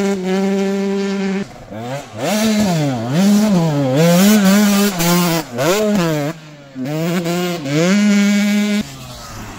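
KTM SX 125 two-stroke single-cylinder motocross engine revving hard under a rider. It holds high revs for over a second, then rises and falls in pitch again and again through the turns. It dips briefly, climbs and holds high again, and drops away abruptly near the end.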